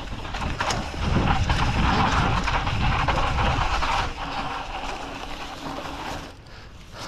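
Mountain bike rolling along a rough dirt trail: tyre noise and rattling, with wind on the microphone. It is loudest for a few seconds after the start and dies down near the end.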